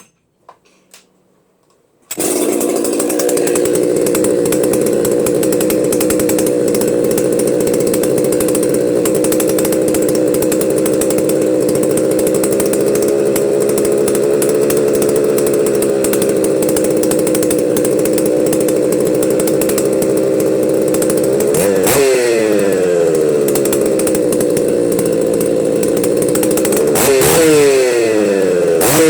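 Husqvarna 61 two-stroke chainsaw engine running steadily, then revved up and back down about 22 seconds in and revved again near the end. It runs but still needs its carburettor adjusted.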